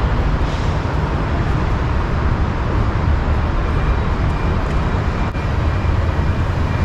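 Steady rumble of city road traffic, with a sharp click about five seconds in.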